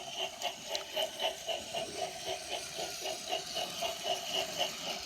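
Remote-control Trackmaster Molly toy engine running along the track, its motor and gearing giving an even rhythmic clatter about five beats a second.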